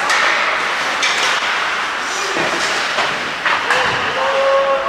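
Ice hockey play on the rink: skates scraping across the ice, with sharp clacks of sticks and puck several times. Near the end a voice calls out with a drawn-out shout.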